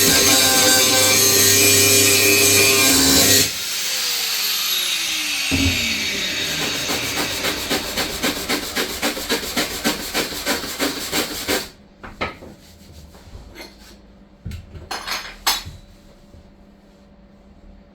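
Background music that cuts off about three seconds in. A power tool then spins down, its pitch falling and its rhythmic pulses slowing until it stops. Scattered knocks and clicks of workshop handling follow.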